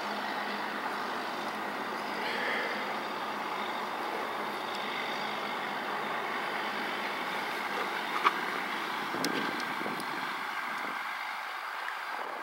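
Steady outdoor background noise, an even hiss with no distinct source, with one sharp click a little past eight seconds in.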